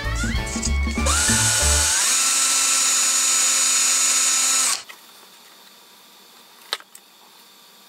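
Power drill spinning up with a rising whine, then running steadily as a small bit bores through a butternut knuckle joint for a match-stick pin that retains the pivot pin. It cuts off abruptly after about four seconds, and a single sharp click follows near the end.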